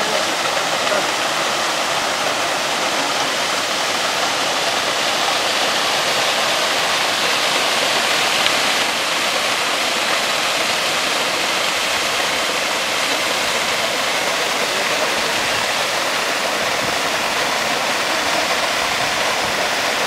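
Waterfall cascading down rock steps into pools: a steady, even rush of falling water.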